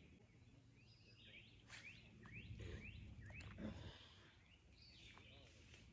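A songbird singing a faint run of quick rising notes, about three a second, over a low outdoor rumble, with a short noisy swish about two seconds in.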